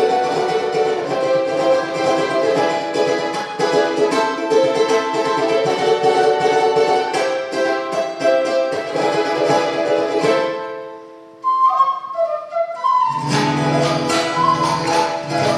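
Latin American folk ensemble playing an instrumental passage: wooden flutes over strummed and plucked acoustic strings and a drum. About ten seconds in the band fades out and a lone flute plays a short phrase, then the full ensemble with a deep drum comes back in about thirteen seconds in.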